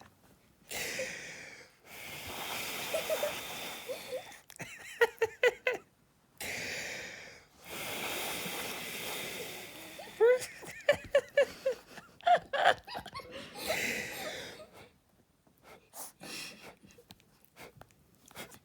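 Long puffs of breath blown out in a steady hiss, several in a row, with bursts of a person's giggling laughter between them and a few short clicks near the end.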